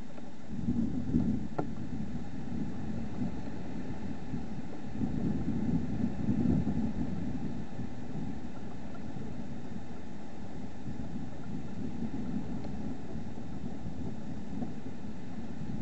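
Wind buffeting a trail camera's microphone: a low rumble swells and fades in gusts, about a second in and again around the middle, over the camera's steady hiss.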